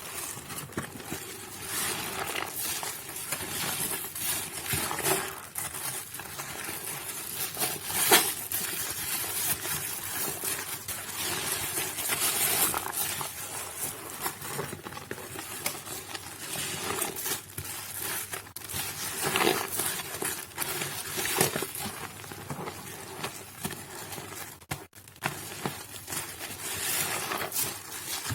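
Soaked Nuvo bar soap being worked by hand: a continuous, irregular wet crackling and squishing, with one sharper crack about eight seconds in.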